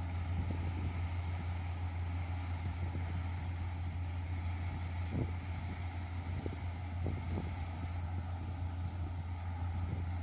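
Yanmar YH470 combine harvester's engine running steadily: a constant low drone with a few faint knocks.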